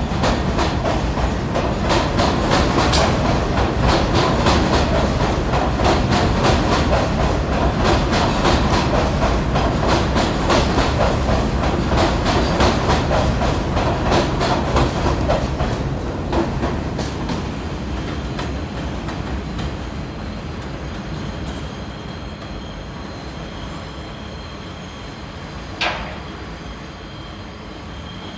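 R62 subway train pulling out of the station, its wheels clattering over the rail joints in a quick, even rhythm. The clatter fades away over the second half as the train leaves. One short sharp sound comes about 26 seconds in.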